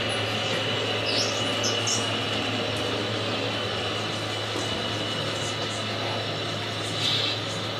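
Small electric motor of a radio-controlled model whining steadily at a high pitch over a steady low hum and hall background noise. A few short high squeaks come about a second in, and a brief louder noise comes near the end.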